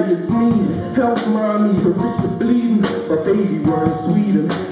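Live band music: a drum kit keeping a steady, fast beat under a male voice singing a melody into a microphone.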